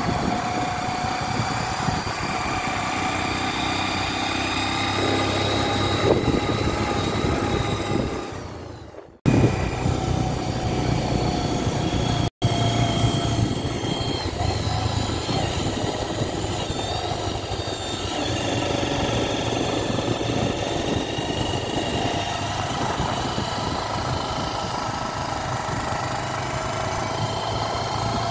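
Motorcycle engine running steadily while riding, with wind and road noise. The sound fades out briefly about nine seconds in and drops out for an instant about three seconds later.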